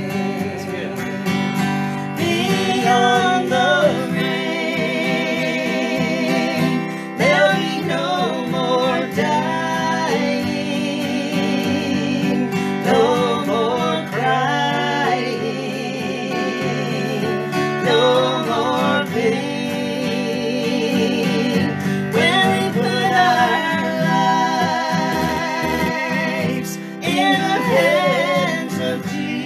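A man and a woman singing a country gospel song together, accompanied by a strummed acoustic guitar. The voices hold long, wavering notes throughout.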